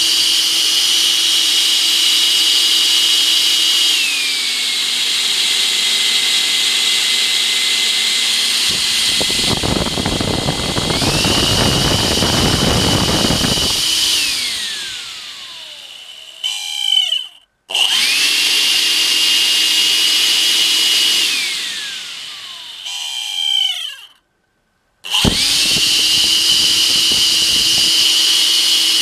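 Makita CL182FD 18V cordless vacuum's motor fan running with a high whine, dropping to a lower speed about 4 s in and back up about 11 s in, with a rougher rushing noise for a few seconds in the middle. It is then switched off and winds down to a stop twice, restarting each time. This is the abnormal motor noise that the owner thinks may mean the motor is at the end of its life after two years of near-daily use.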